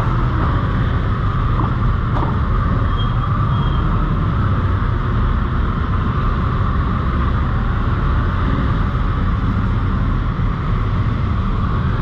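Steady rush of wind and road noise from a moving motorcycle, heavy in the low end, with no breaks or changes.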